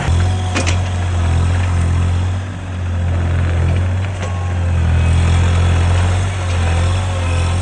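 Diesel engine of a Toro Dingo TX1000 Turbo mini skid steer loader running steadily with a low drone, with a couple of sharp knocks, about half a second in and again about four seconds in.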